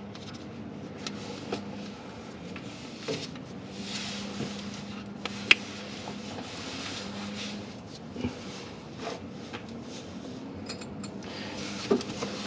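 Scattered light metallic clinks and scrapes of hand tools and fittings being handled, over a steady low hum.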